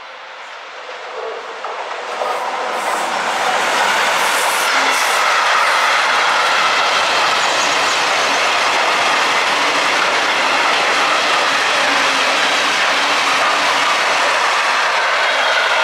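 Mixed freight train, headed by a Traxx electric locomotive, passing close by: the rolling noise of wheels on rail swells over the first four seconds as it draws near, then holds steady and loud while the tank wagons go past.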